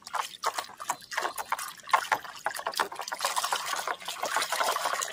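Soapy water sloshing and splashing in a plastic basin as a hand scrubs a plastic toy dinosaur under the surface: a busy, irregular run of splashes that grows fuller in the second half.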